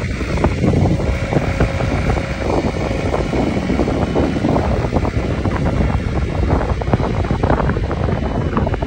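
Ransomes diesel finish mower's engine running as the mower drives across gravel, with heavy wind buffeting on the microphone.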